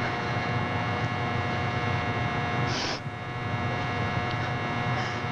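Steady electrical mains hum, a buzz of many steady tones, on an old film soundtrack, with a short burst of noise about three seconds in.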